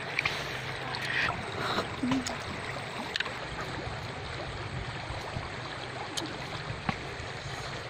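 River water flowing and lapping steadily at the bank, with a few faint small clicks over it.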